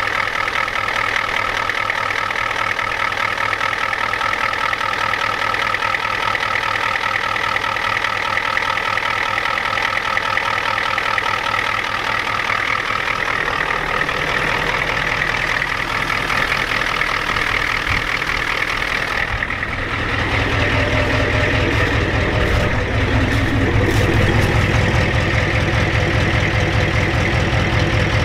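Ford 7.3 L IDI V8 diesel idling, warming up from a cold start after sitting about a week. Close to the belt-driven alternator it has steady high-pitched tones; about two-thirds in it turns deeper and louder, with a fast low pulsing, heard from under the truck.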